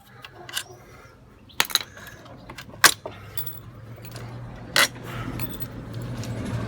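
Metal tools and small engine parts clinking as a petrol grass trimmer engine is taken apart. There are about five sharp clicks, the loudest about three seconds in, over a low steady hum.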